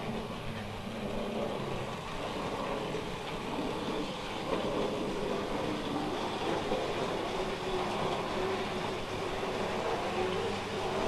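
Tri-ang Hornby model freight train, two motorised power units hauling a long rake of bogie wagons, running past on the track. The motors whirr and the wheels rattle over the rails in a steady, unbroken noise.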